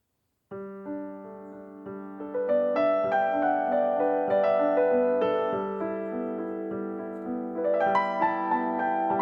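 Background piano music starts about half a second in: a melody of notes over a steady low note, growing louder a couple of seconds in.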